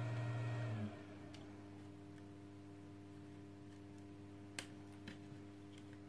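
An electric appliance humming with its fan running switches off about a second in, its pitch dropping briefly as it winds down. After that only a faint steady hum remains, with a couple of small sharp clicks, the plastic cord reel being handled.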